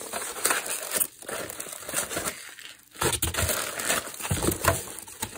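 Foam packing peanuts and foam packing blocks rustling in a cardboard box as hands dig through and lift them out, in irregular bursts with a short lull about halfway through.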